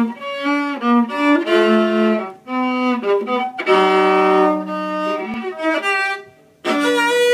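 Solo violin bowed in a slow melody of held notes, mostly low on the instrument, played in short phrases with brief breaks between them, the longest break near the end.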